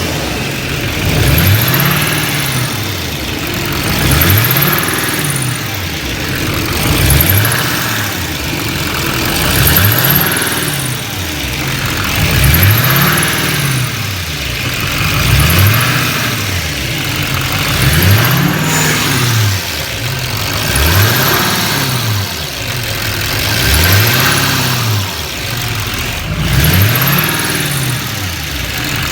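Duramax LML 6.6-litre V8 turbo-diesel running, with a short, high, falling chirp repeating about every three seconds. The engine note swells and falls in step with it.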